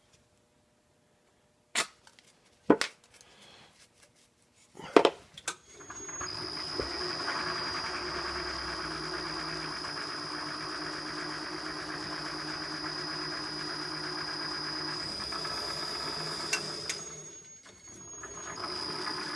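A few sharp knocks of metal being handled, then a milling machine running with a steady high whine over its motor noise. Near the end it drops away briefly and starts up again.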